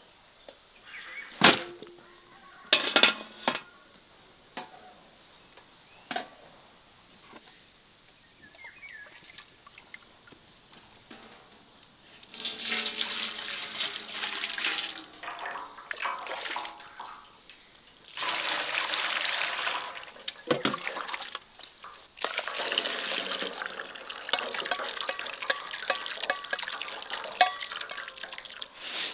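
A few sharp knocks, then water running or pouring with splashing in three long spells.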